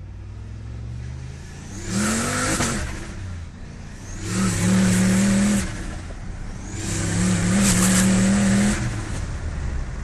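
Modified 650 hp V8 of an HSV GTS, heard from inside the cabin, opened up hard three times in short bursts of acceleration lasting one to two seconds each, easing back to a lower drone between them.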